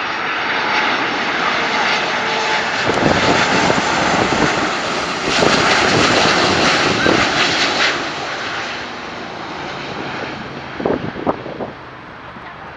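Air Transat Airbus A330 twin-engine jetliner passing by on landing approach: a loud jet rush that builds over the first few seconds, peaks, then fades after about eight seconds.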